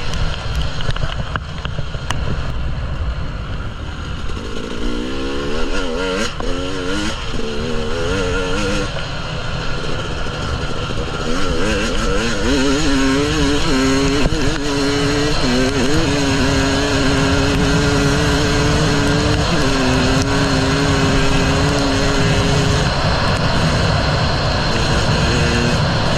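KTM 300 EXC single-cylinder two-stroke enduro engine under riding, its revs rising and falling repeatedly through the first half, then held at a steady pitch for several seconds with a brief dip about two-thirds in.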